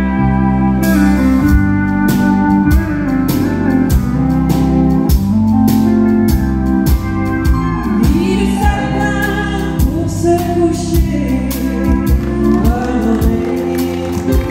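Live country band with a woman singing lead; the drums come in about a second in and keep a steady beat.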